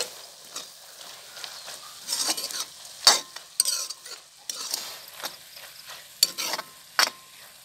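A metal ladle stirs beef tripe with ginger and chillies around a metal wok, scraping and clacking against the pan over a light sizzle of frying. Several sharp clacks stand out, the loudest about three seconds in.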